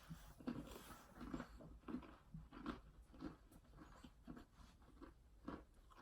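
Faint chewing of a Skyflakes Condensada cracker sandwich, a soft crunching chew about twice a second.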